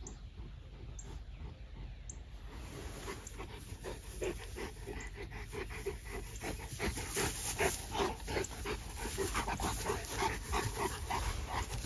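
Cane Corsos panting rapidly in quick, even breaths, faint at first and louder from about three seconds in.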